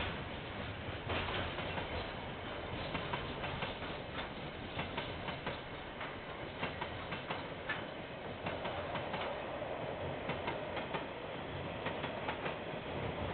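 Freight train wagons rolling past, their wheels clicking over the rail joints in an uneven stream of clacks over a steady rumble, heard through a security camera's microphone.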